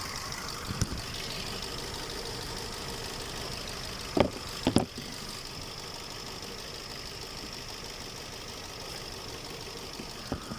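Chevrolet engine idling steadily while it throws a cylinder 4 misfire code (P0304), with a few sharp clicks about a second in, twice around four to five seconds in, and once near the end.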